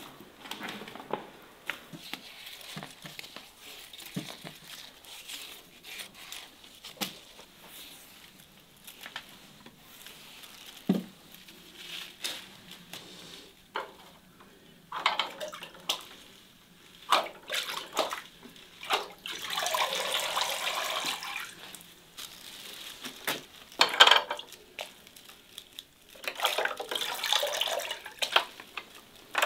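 Water splashing and trickling in a metal bucket as a kokedama moss ball is dipped into it to soak, with scattered small knocks and drips. Two longer spells of running, trickling water come about two-thirds of the way in and again near the end.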